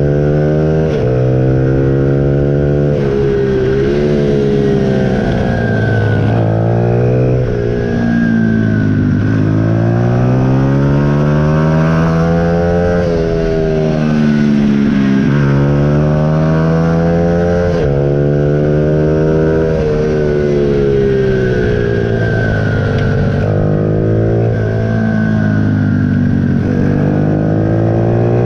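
Junior supermoto motorcycle engine heard from the bike itself at race pace, its pitch climbing as it is revved up and dropping away when the throttle is shut, over and over through the lap.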